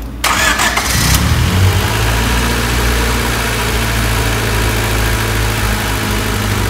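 Honda Civic four-cylinder engine cranking on the starter for about a second, then catching and settling into a steady idle: its first start after a head gasket replacement. It runs with no popping or ticking.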